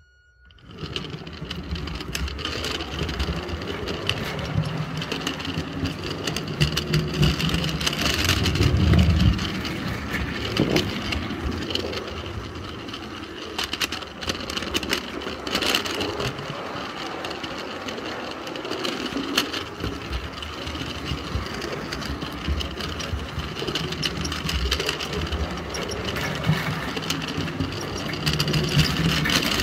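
A 16mm-scale model train running, heard from a camera riding on one of its wagons: a continuous rattle of wagon wheels clicking over the track, with the running of the Roundhouse 0-6-0 electric loco. It starts about a second in and gets louder around a third of the way through and again near the end.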